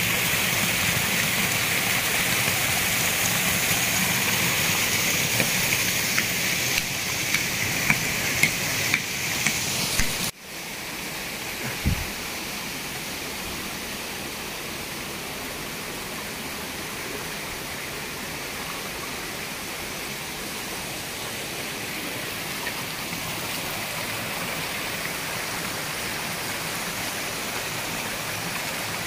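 Steady rushing of a waterfall, louder for the first ten seconds, with a few sharp clicks just before an abrupt drop to a quieter, steady rush.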